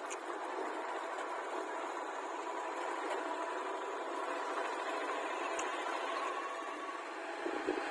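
A heavy vehicle's engine running steadily, growing a little louder near the end.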